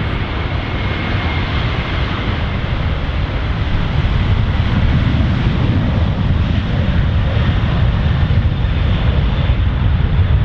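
Airbus A330 jet engines rolling along a wet runway: a loud, steady rumble mixed with the hiss of wheel spray, slowly growing louder.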